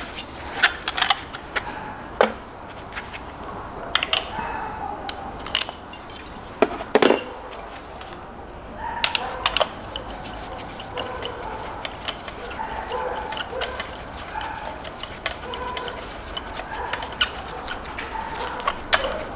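Irregular metallic clicks and clinks of a socket wrench and extension turning spark plugs in the cylinder head's plug wells, growing more frequent about halfway through.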